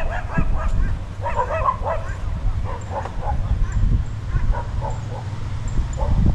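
Small dogs barking in short bursts, with birds giving faint, high chirps at intervals over a steady low rumble.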